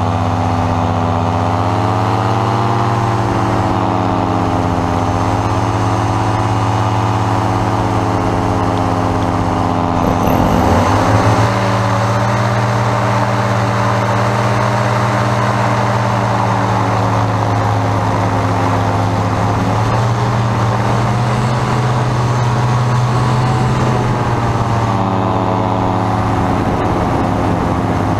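Engine and propeller of a trike powered paraglider running steadily under power, a loud droning tone that drifts a little in pitch with the throttle. About ten seconds in the sound breaks briefly with a quick pitch sweep, then the steady drone resumes.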